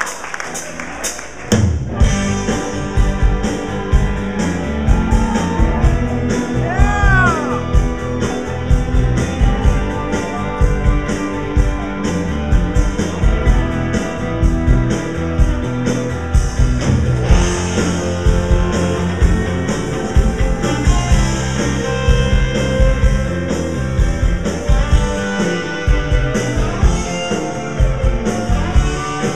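Rock band playing live: electric guitar, bass guitar and violin over a steady beat, the full band coming in loudly about two seconds in.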